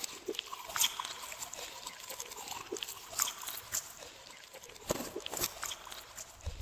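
Glossy slime being squished and kneaded by hand: irregular wet clicks and small pops, busiest about five seconds in.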